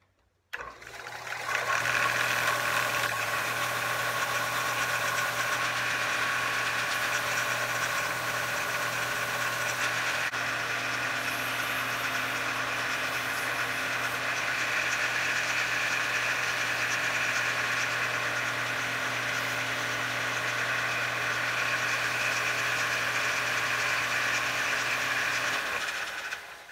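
Bench-top combination belt and disc sander starting up and running steadily with a motor hum, while a small wooden blank is pressed against it and sanded. Near the end it is switched off and the sound dies away as it winds down.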